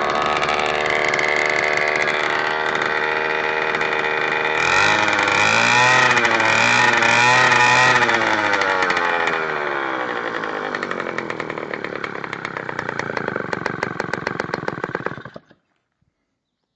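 Krasnyj Oktiabr 48 cc two-stroke bicycle engine running. It is revved up and down a few times about five to eight seconds in, then slows until each firing beat is heard separately, and cuts off about fifteen seconds in.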